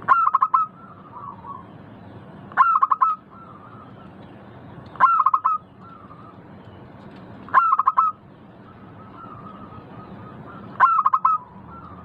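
Zebra dove (perkutut) cooing: five loud, rippling phrases of quick notes, one about every two and a half seconds, with softer cooing between them.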